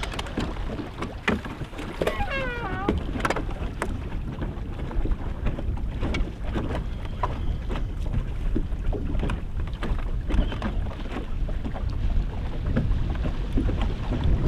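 Wind rumbling on the microphone over the sound of water around a fishing boat, with scattered light clicks and knocks. About two seconds in, a short run of falling squeaky chirps.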